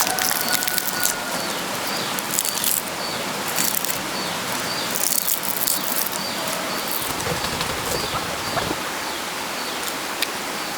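Outdoor ambience: a steady rushing hiss with a short high chirp repeating about every half second, and scattered crackling rustles.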